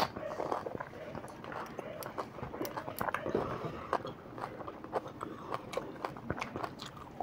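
Pani puri being bitten and chewed: crisp hollow puri shells filled with spiced water and green chilli, giving irregular small crunches and wet clicks.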